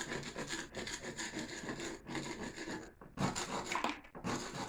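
Hand tool scraping old mortar off the fireplace in irregular rasping strokes, with two short pauses in the second half.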